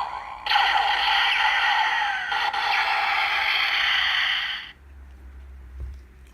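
Kamen Rider Build Transteam Gun toy playing its electronic sound effect through its small speaker: a loud hissing burst with tones running through it for about four seconds, which then cuts off suddenly.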